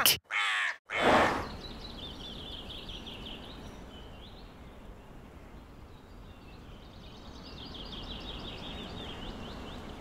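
Two quick whooshes, then a soft nature ambience of small birds chirping and trilling over a low, even hiss.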